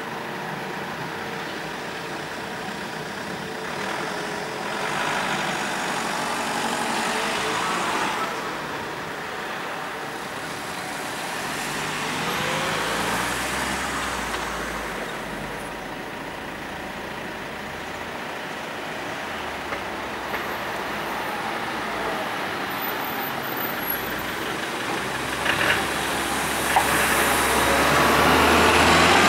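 Road traffic passing close by: cars go past one after another, then an articulated city bus drives by right at the end, the loudest sound, with a few short clanks as it comes.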